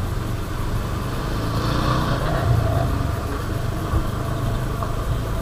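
Motorcycle engine running at a steady low riding speed, with road and wind noise.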